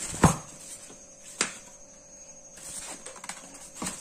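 Packaging of a portable air compressor being handled: a sharp knock just after the start, another click about a second later, then lighter rustling of plastic wrap and styrofoam. A faint steady hum runs underneath.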